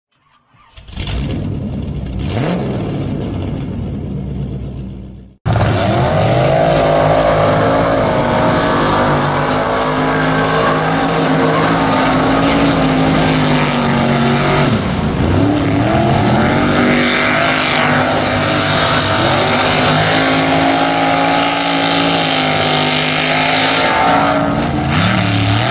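Small-block V8 mud-racing trucks running flat out through a mud pit, their engines at high revs. Partway through, the revs drop and climb again. This follows a few seconds of a separate intro sound that fades out.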